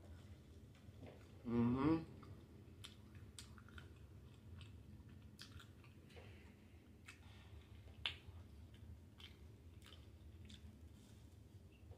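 Close-up mouth sounds of someone chewing a grilled cheese sandwich and fries, with scattered wet smacking clicks. A short hummed "mm", rising in pitch, comes about one and a half seconds in, and one sharper smack about eight seconds in.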